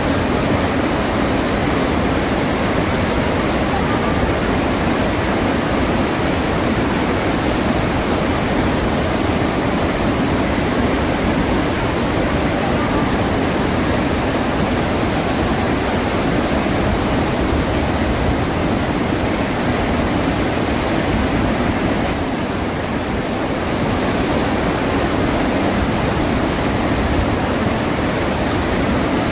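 Iguazu Falls: a large waterfall's steady rushing roar, a dense, unbroken noise of falling water with a deep low rumble underneath.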